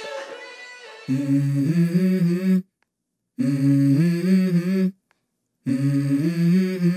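Background music: one track fades out in the first second, then a new song opens with three held melodic phrases that step in pitch, each cut off by a sudden silent gap.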